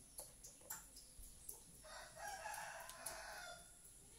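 Light taps of a chess piece on the board near the start, then a single long animal call about two seconds in, lasting about a second and a half.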